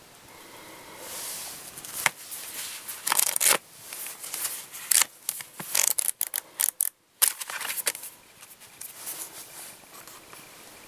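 Paper booklets being handled: rustling, sliding and sharp paper snaps as pages are flipped and the books are moved about on a table, with a brief gap of silence about seven seconds in.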